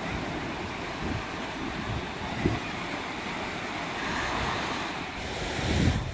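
Small sea waves breaking and washing up a sandy, rocky beach, with wind buffeting the microphone. The wash swells louder about four seconds in, and a gust of wind rumbles near the end.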